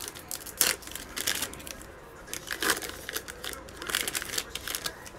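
Shiny foil wrapper of a 2020 Mosaic football card pack crinkling and tearing as it is ripped open by hand, with the sharpest rip about half a second in, then more crinkling as the stack of cards is slid out of the wrapper.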